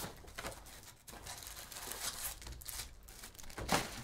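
Plastic shrink wrap being torn off a trading-card box and crinkled, with the box and foil packs handled; the loudest crackle comes near the end.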